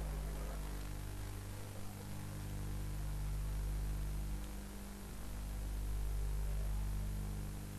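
Steady low electrical hum with an even hiss over it, dipping slightly about two-thirds of the way through: the noise floor of a microphone and recording chain during a pause in speech.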